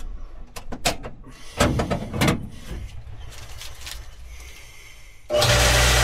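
A few handling clicks and knocks, then about five seconds in a water booster pump's electric motor starts abruptly and runs steadily with a low hum. It now starts on its newly fitted start capacitor, the old one having failed.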